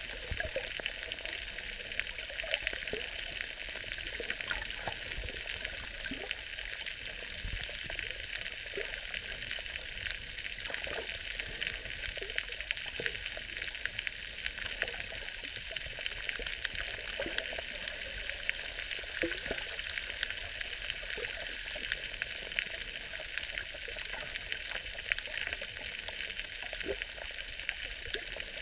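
Steady underwater crackling hiss with many scattered faint clicks, picked up by a camera in its waterproof housing while submerged.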